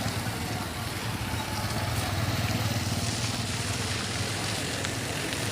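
Steady rumble of motor engines running, with an even wash of road noise.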